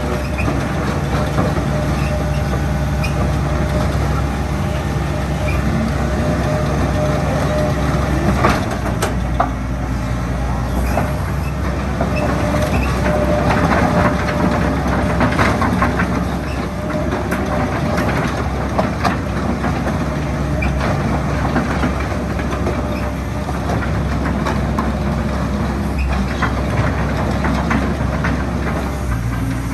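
Hitachi ZX130L-3 hydraulic excavator running, its diesel engine holding a steady note that shifts once about a third of the way through, with scattered metallic clicks and knocks from the machine working.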